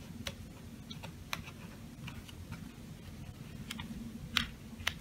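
Small clicks and taps of a crystal-growing tree kit's slotted pieces being fitted and pushed into its plastic stand. There are about five scattered ticks, the loudest a little past four seconds in.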